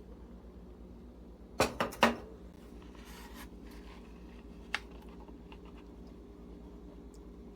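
Kitchen handling sounds: a quick clatter of three or four knocks, like dishes or utensils being set down, about a second and a half in, then a soft rustle and a single click, over a steady low hum.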